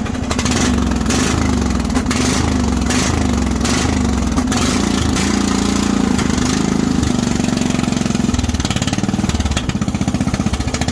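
Small gasoline lawn mower engine running steadily with its newly fitted blade, its pitch wavering a little. A faint regular pulsing, a bit more than once a second, is heard in the first few seconds.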